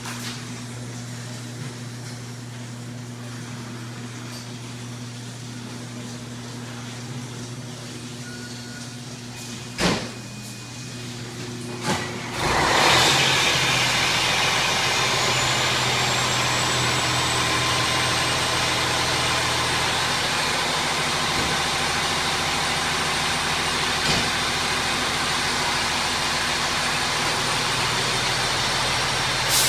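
Fire engine's diesel idling as a steady low hum, then about twelve seconds in a sudden loud rush of noise as the truck pulls out and keeps running, with a faint thin high whine slowly climbing.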